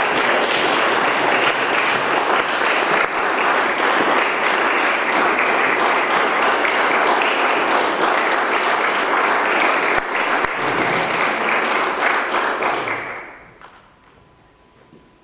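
Audience applauding steadily, the clapping dying away about thirteen seconds in.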